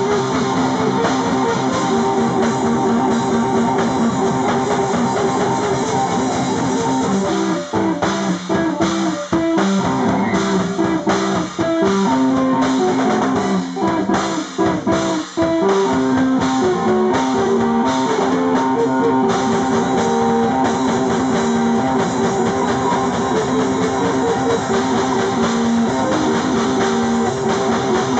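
Live rock band playing: electric guitar riffs over drum kit, with several short stop-start breaks in the middle.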